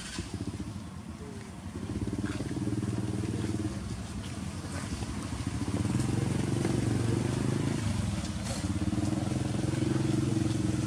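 A small engine, likely a motorcycle, running steadily at a nearly constant pitch. It grows louder about two seconds in and again about six seconds in.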